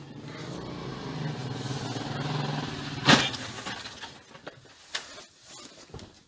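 Motorcycle engine running and growing louder over the first couple of seconds, then one sharp crash about three seconds in as two motorcycles collide, followed by a few scattered knocks and clatters.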